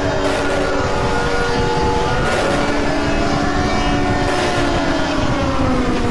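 Altered emergency alert (EAS) alarm tones: several held tones, with one sliding up and down about every two seconds, over a loud rough noise, and a short hiss that returns about every two seconds.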